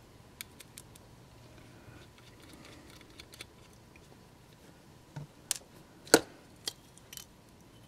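Faint, scattered clicks and taps of a small screwdriver and small parts as screws are backed out of a model locomotive's circuit board, with a sharper click about six seconds in.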